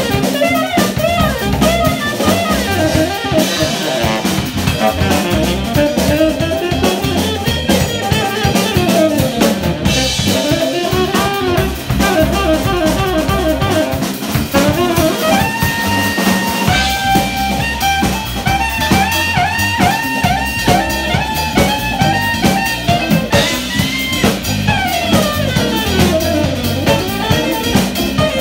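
Live jazz band playing: a saxophone plays the lead melody over electric guitar, electric bass and drum kit, with some longer held notes in the second half.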